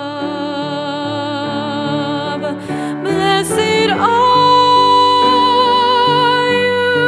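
A woman singing a slow hymn with vibrato, accompanied by grand piano chords; about four seconds in she holds one long note.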